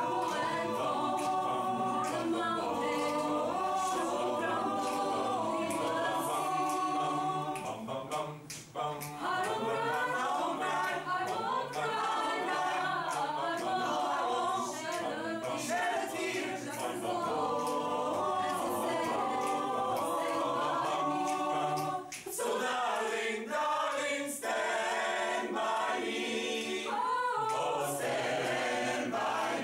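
Mixed choir of men's and women's voices singing a cappella in several parts, with short breaks in the sound about eight seconds in and again around twenty-two seconds.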